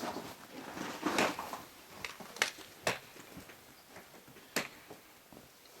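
A few light, scattered clicks and knocks, like gear being handled, over low background noise.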